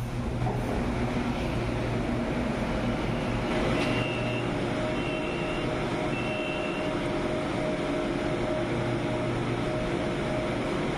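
A BTS Skytrain stands at the station platform with a steady mechanical hum. About four seconds in, three short high beeps sound as the doors open and passengers step off.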